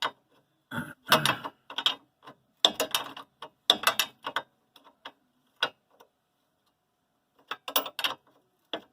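A wrench and metal parts clicking and clinking as the nut of a suspension stabilizer link is worked loose, in irregular groups of sharp metallic clicks separated by short pauses.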